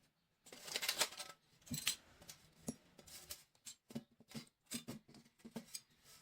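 Irregular small clicks and scrapes of hand work on a die-cast model bus, several a second.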